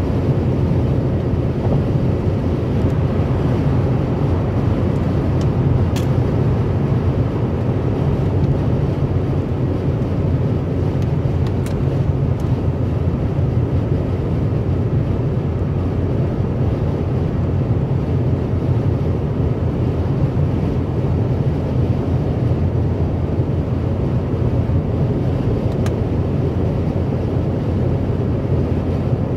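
Steady low road rumble of a car cruising at motorway speed: tyre noise on the asphalt with engine hum, heard from inside the car.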